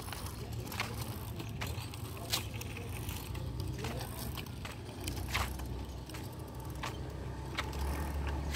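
A child's bicycle being ridden, its chain and freewheel ticking and rattling in irregular clicks over a steady low rumble.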